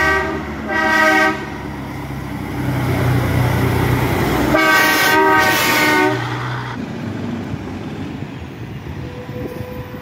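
A heavy dump truck's multi-tone air horn sounds in short blasts at the start and again in a run of blasts about five seconds in. Under the horn is the low drone of the truck's diesel engine as it passes, fading after about seven seconds.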